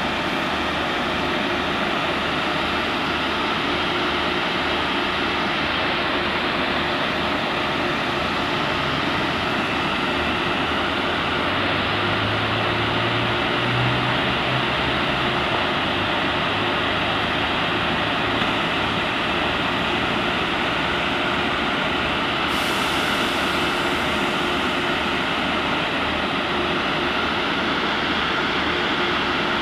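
SRT Sprinter diesel multiple unit running at the station platform and pulling away. There is a steady engine hum and whine, and a low engine note rises and strengthens about halfway through.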